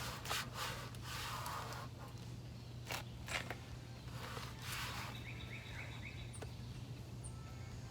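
Adhesive tape being pulled and handled: a few short rustling scrapes in the first half over a steady low hum, with faint bird chirps around the middle.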